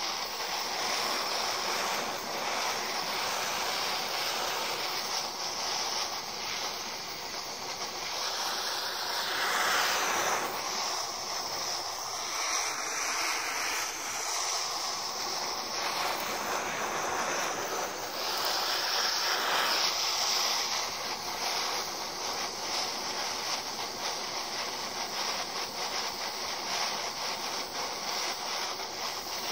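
Gas torch flame hissing steadily as it burns into a halved apple. The hiss thins for a few seconds about halfway through.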